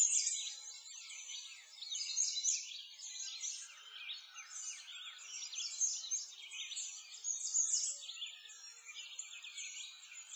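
Many small birds chirping and twittering together, a dense, unbroken stream of quick high notes that slide up and down in pitch.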